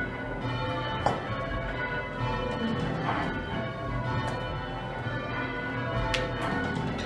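A ring of six church bells, tenor in A, being change-rung in a method: bells struck one after another in steady succession, their tones overlapping and ringing on.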